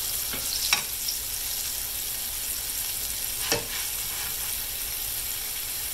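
Flour-dredged round steaks sizzling steadily in hot corn oil in a braiser. Two short clicks from the metal tongs, one near the start and one a little past the middle.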